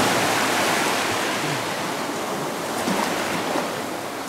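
Small sea wave breaking at the shoreline and washing up the sand, its rush slowly fading as the foam spreads and drains back.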